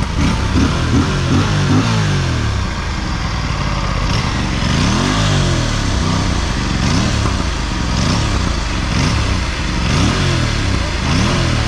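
Aprilia RS 457's 457 cc parallel-twin engine revved in a long run of quick throttle blips, each a short rise and fall in pitch, bunched together at first and then about one a second.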